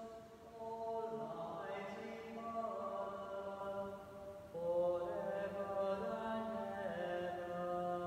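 Sung liturgical chant at Mass: long held notes that step slowly up and down in pitch, with the voices swelling louder about halfway through.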